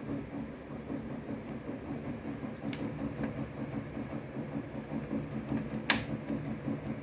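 Banging noise from a neighbour's flat: a steady, rapid low thudding, with a couple of light clicks and one sharp knock about six seconds in.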